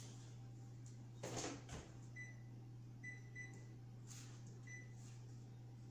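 A brief clatter about a second in, then an oven's control panel beeping four short high beeps as it is set, over a faint steady hum.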